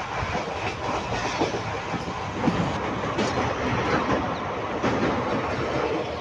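Maharashtra Express passenger train running, heard at the coach window: a steady rumble and rush of wheels on the track, with scattered clicks as the wheels cross rail joints.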